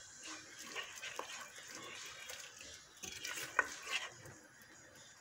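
A spoon stirring and scraping through a thick sauce in a stainless steel pot, with a few sharp knocks of the spoon against the pot, the loudest about three and a half seconds in.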